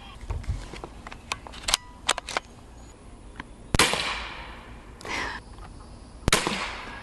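Umarex Air Javelin Pro air-powered arrow rifle firing: light clicks of the arrow being loaded, then a sharp report about four seconds in that trails off in a hiss. A second, similar sharp report comes near the end.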